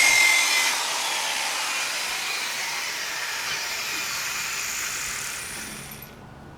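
Milwaukee electric buffer spinning a pad on a plastic headlight lens: a high motor whine that drops in level about a second in, then slowly falls in pitch and winds down to a stop near the end.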